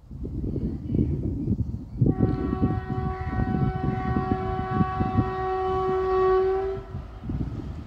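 Indian Railways WAP-4 electric locomotive sounding one long horn blast of about five seconds as it approaches, a steady single pitch, over a low rumble.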